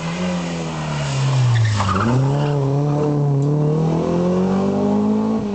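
A BMW rally car's engine coming closer at speed. Its note dips twice, then climbs steadily as it accelerates, growing louder.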